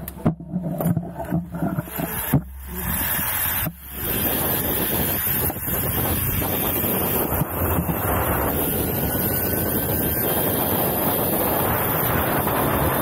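Zipline ride: a few knocks and clatter in the first seconds as the rider leaves the platform, then from about four seconds in a steady rush of wind over the microphone together with the trolley's pulleys running fast along the steel cable.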